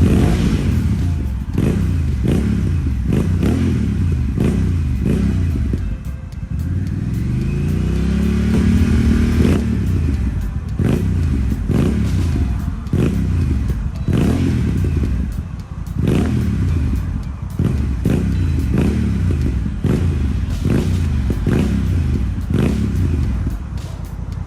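Honda Rebel parallel-twin engine through an aftermarket Swica exhaust, revved repeatedly in quick throttle blips. About seven seconds in it is held in one longer rev that climbs and drops back.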